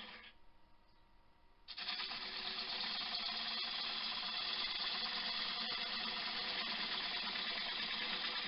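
Wood lathe running with a gouge cutting into a spinning elm blank, a steady scraping hiss over the hum of the lathe. The sound falls away just after the start and comes back abruptly about two seconds in.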